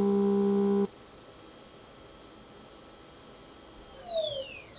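CNC vertical milling machine spindle whining at a steady high pitch, then falling in pitch as it winds down near the end. A louder low droning note from the machine cuts off abruptly a little under a second in.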